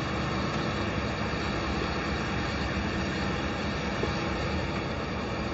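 Steady rushing road noise from highway traffic, even throughout, with no distinct events.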